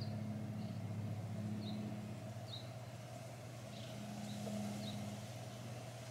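Outdoor ambience: a steady low mechanical hum, with small birds giving short high chirps every half second to a second.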